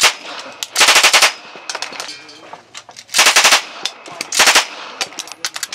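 A PM-63 RAK machine pistol firing 9×18mm Makarov on full auto from its open bolt: one shot, then three short bursts, at a slow rate of fire.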